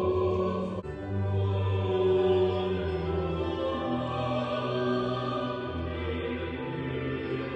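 Slow music with long held notes and sung voices over a steady low bass, breaking off briefly about a second in.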